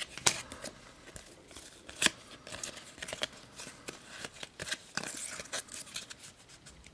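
Panini Euro 2012 football trading cards being handled, stiff cards slid and flipped past one another in the hands, giving scattered light snaps and rustles.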